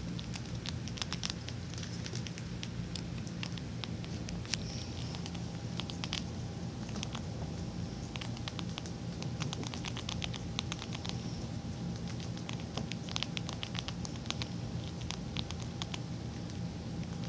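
Pet rats chewing dry food close up: rapid, irregular crisp crunching clicks.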